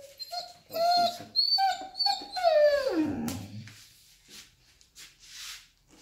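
Young male Magyar Vizsla whining in a run of short high calls, then about three seconds in a longer call that slides down in pitch. It is the excited, happy vocalising the owners call singing or pack howling, not a whimper of distress.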